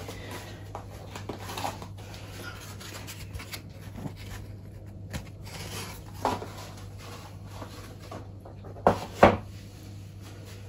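An egg box being handled and rubbed against the kitchen worktop, with a short knock about six seconds in and two sharp knocks close together near the end as it is set down. A steady low hum runs underneath.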